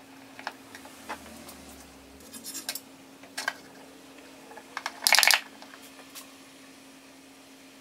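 A plastic stick scraping and tapping inside a crushed aluminium soda can in short strokes. About five seconds in, a brief, louder crackle as the can is handled and lifted.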